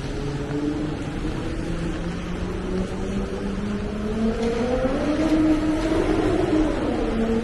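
A motor vehicle passing close by, its engine note rising in pitch and getting louder over the last few seconds, over a steady hiss of rain and wet street.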